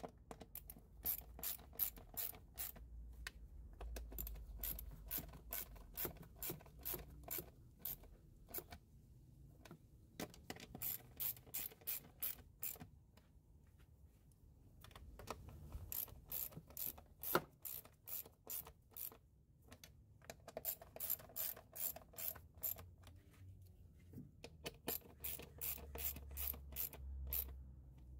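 Hand ratchet clicking as it tightens bolts, in several runs of quick, even clicks broken by short pauses.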